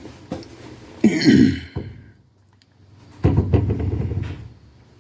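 A person coughing sharply about a second in, then clearing his throat with a low, rough sound a couple of seconds later.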